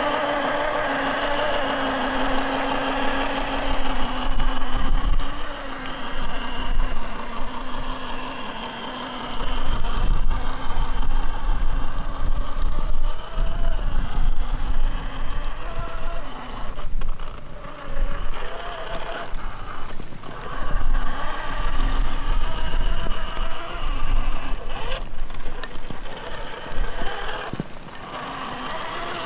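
Sensored brushless motor and geared drivetrain of a Traxxas TRX-4 Sport RC rock crawler whining under load as it climbs rock. The whine comes in uneven surges, its pitch rising and falling with the throttle.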